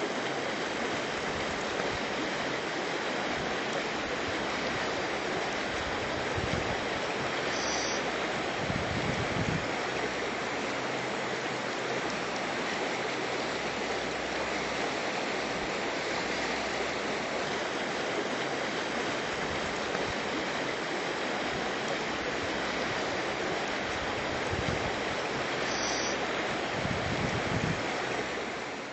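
River water rushing steadily over stones in a shallow rocky stretch. A short, faint high note sounds twice, about eight seconds in and again near the end.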